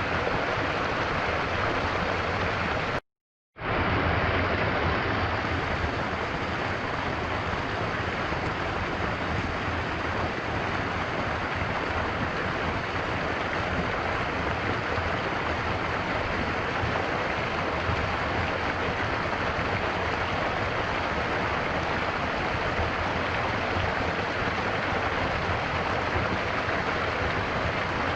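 Steady rushing of a flowing stream. It cuts out to silence for about half a second, about three seconds in, then resumes.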